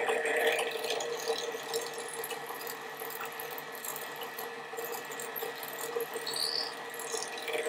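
Benchtop drill press running, its thin bit drilling a hole through a PVC pipe cap: a steady motor hum with a higher whine that stops near the end.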